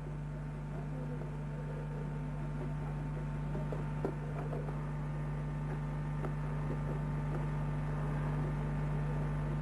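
Steady electrical mains hum with a thin high whine, over a faint, indistinct outdoor background and tape hiss, typical of an old analogue videotape recording.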